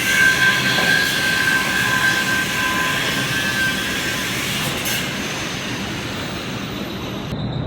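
Loud industrial noise: a steady rushing hiss with a high, steady whine that fades out about four seconds in, then the sound changes abruptly near the end.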